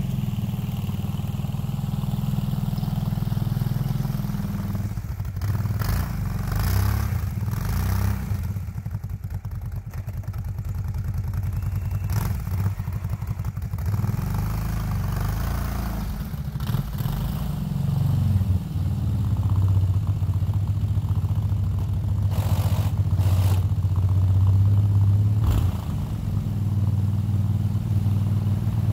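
Kawasaki Brute Force 750 ATV's V-twin engine running and revving up and down as it pushes a snow plow, with a few brief clatters.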